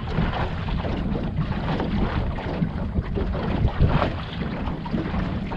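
Boat under way on the water: steady wind buffeting the microphone over a low rumbling noise of the boat moving, with no clear engine note.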